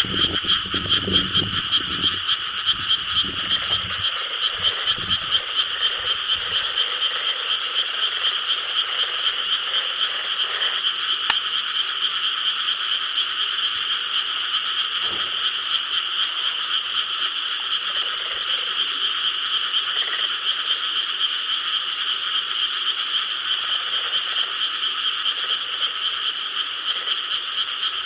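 Dense chorus of many frogs calling at once: a continuous high-pitched, fast-pulsing trill, with a few deeper croaks in the first few seconds.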